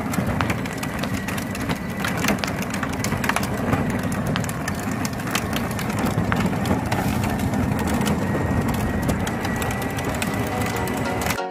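Electric ride-on Polaris RZR 900 toy car driving on pavement: its hard plastic wheels crunch and crackle over grit, with a faint steady whine from its electric drive motor.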